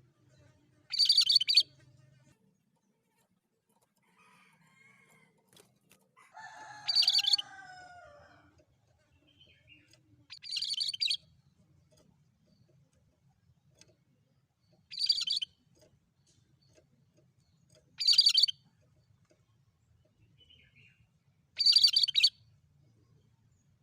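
Cucak kerinci, a bulbul, singing in six short bright bursts of song a few seconds apart. The burst about seven seconds in carries lower, falling notes along with the high ones.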